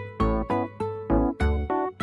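Background music: a bouncy keyboard tune of quick struck notes, about four or five a second, each decaying quickly.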